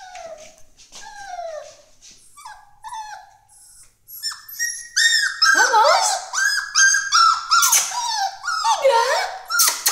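Two-month-old puppy whining. A few soft, falling whines come at first, then from about halfway a near-constant run of louder, high-pitched whimpers as it hesitates at the edge of a stair step it is learning to go down.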